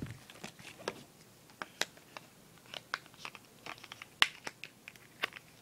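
Irregular light clicks and handling noise as hands work on a new mobile phone and its small plastic and paper parts, readying it to be switched on; the sharpest click comes about four seconds in.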